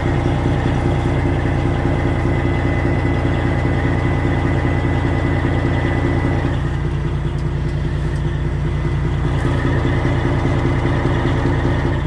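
Freightliner Classic XL semi truck's Detroit Diesel 12.7 engine running at low revs during slow maneuvering. A thin steady whine sits over it until about six and a half seconds in, when the engine sound drops a little.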